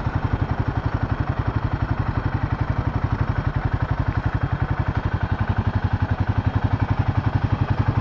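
Royal Enfield Himalayan 450's single-cylinder engine running at low revs, a steady, even thumping of about a dozen beats a second as the bike rolls in slowly.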